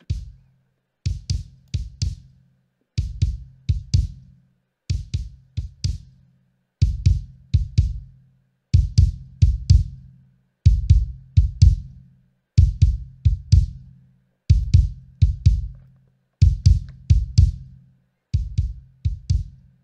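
Looped kick drum playing groups of three or four quick hits about every two seconds, run through a Pultec-style tube EQ emulation with its 60 Hz low shelf boosted. The kick grows louder and heavier in the bottom end about seven seconds in, as the boost is turned up, giving lots of thump.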